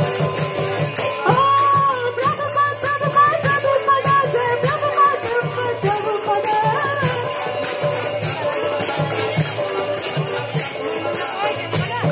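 Devotional kirtan: voices chanting a melody over a steady beat of hand cymbals and a low drum.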